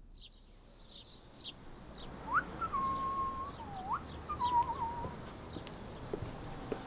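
Small birds chirping in short, high calls. From about two seconds in, a few whistled notes join them: a rising note, one long held note, a dip and then a warbling run, ending about five seconds in.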